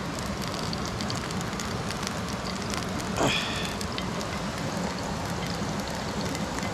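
Plantains frying in hot oil over an open fire: a steady sizzle dotted with fine crackles, the plantains starting to burn.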